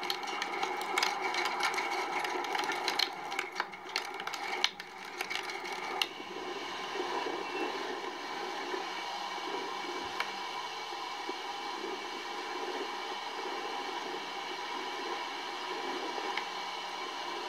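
Wind noise from tornado footage playing through a laptop's speakers: crackly buffeting for the first six seconds or so, then a steady rushing noise.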